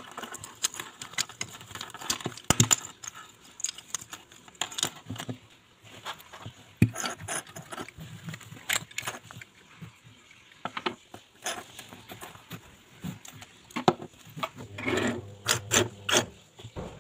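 Small plastic and metal pencil sharpeners clicking and clattering against each other and a wooden tabletop as they are handled and set down, with a denser rattle near the end.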